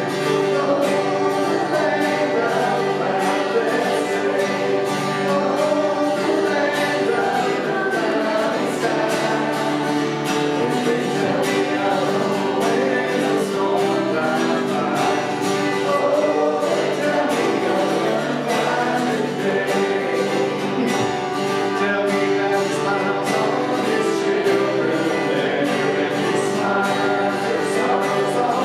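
Gospel hymn sung by a group of voices over strummed acoustic guitar, with a steady beat.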